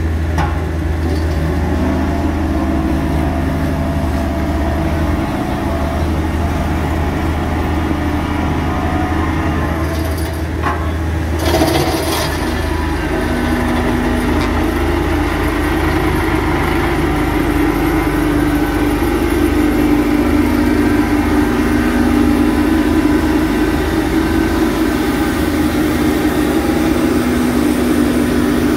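Diesel engine of a JCB Vibromax VM115 single-drum road roller running steadily, a low hum with a few held tones. There is a short clatter about eleven seconds in, after which the engine note settles lower.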